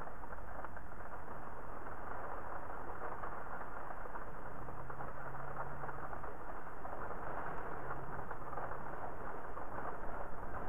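Steady rain with wind, an even rushing hiss. In the middle a faint low hum rises out of it as a car drives by on the wet street.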